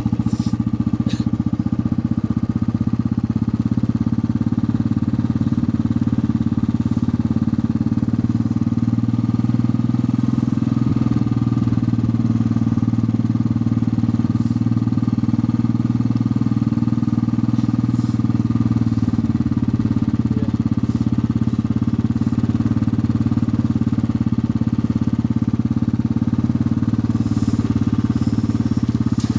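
Motorcycle engine running at a steady speed while riding.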